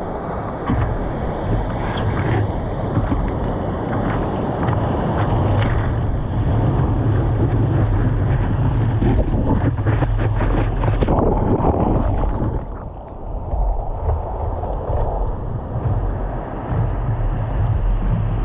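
Wind rumbling on the microphone over the rush and splash of ocean surf, with scattered knocks, dipping briefly about two-thirds of the way through.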